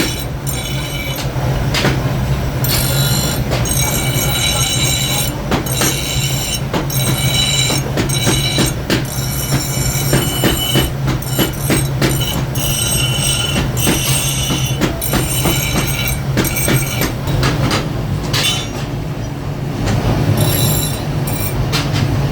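Metalworking in a forge: repeated sharp metal-on-metal strikes with high ringing tones, over a steady low motor hum.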